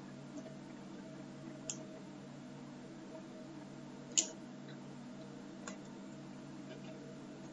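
Computer mouse clicking three times, about a second and a half apart, the middle click the loudest, over a faint steady low hum.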